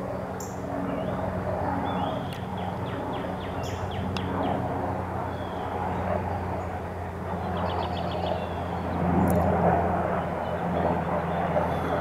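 Steady low hum of vehicle traffic, with two short runs of rapid, high bird chattering, about two seconds in and again near eight seconds.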